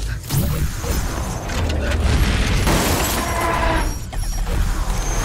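Layered action-film sound effects for a giant robot: mechanical robot sounds over a heavy low rumble and booms, with a brief lull about four seconds in.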